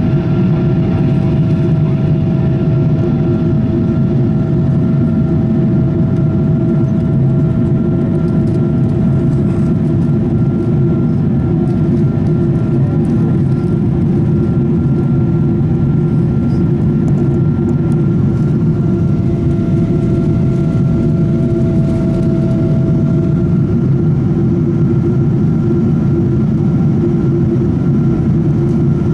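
Steady in-cabin drone of a Boeing 777-200ER climbing after takeoff, heard by the wing: a deep, even rush of engine and airflow noise with a thin steady whine from the engines above it.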